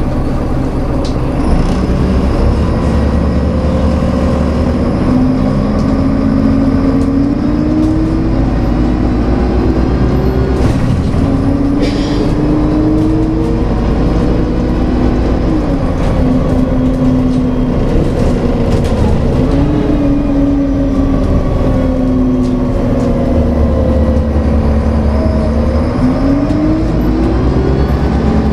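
Karosa Citybus engine and drivetrain heard from inside the passenger cabin: a steady low drone under a whine that rises and falls several times as the bus speeds up and eases off, climbing again near the end.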